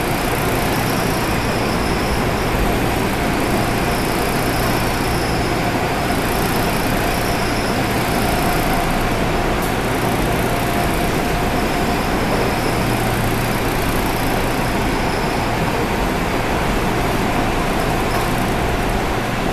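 Seoul Subway Line 7 train running through a tunnel, heard from inside the passenger car: a steady rumble of wheels on rail with a constant whine.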